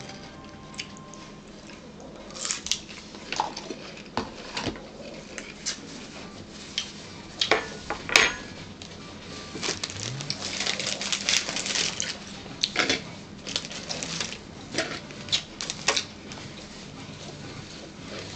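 Mealtime sounds at a table: a fork clicking against dishes and crunchy bites of raw celery, in scattered sharp clicks and crunches. A denser stretch of paper rustling from a napkin comes about ten seconds in.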